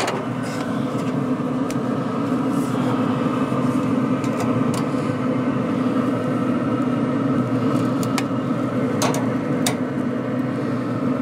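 Steady hum of the Pit Boss pellet grill's fan running, with several light metallic clicks as metal tongs handle the grate and an aluminium sheet pan while the pork chops are lifted off.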